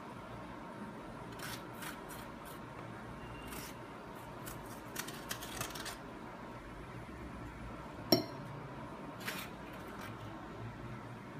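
A metal fork scraping strands of baked spaghetti squash from the shell in short, soft strokes, with one sharp ringing clink of the fork about two-thirds of the way through.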